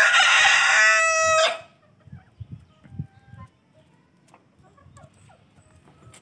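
Rooster crowing once: a loud crow that ends about a second and a half in on a held final note. Faint clucks follow.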